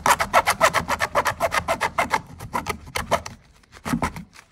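A bare hacksaw blade, held flat in a gloved hand, sawing through a plastic motorcycle fairing air duct in quick rasping strokes, about eight or nine a second. The sawing stops about three and a half seconds in.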